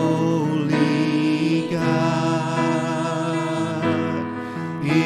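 Live worship song: a man sings long held notes into a microphone over sustained electric keyboard chords.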